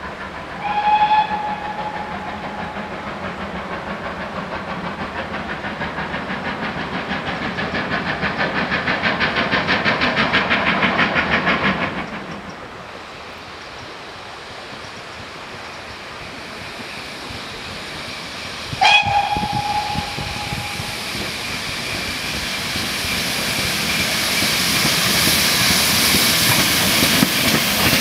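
GWR Castle-class steam locomotive approaching: a short whistle about a second in, then rhythmic exhaust beats that grow louder and stop suddenly about halfway through. A second short whistle follows, then a rising hiss and running noise as the engine draws close.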